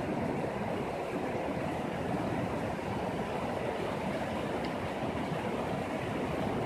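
Shallow mountain river rushing over a rocky bed in whitewater rapids: a steady, full rush of water.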